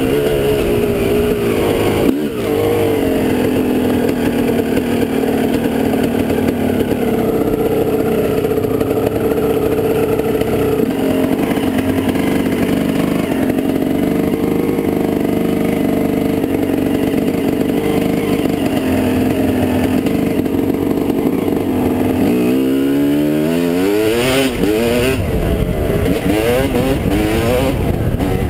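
Dirt bike engine running under steady throttle while riding, with a single knock about two seconds in. About three quarters of the way through, the engine pitch climbs as the bike accelerates.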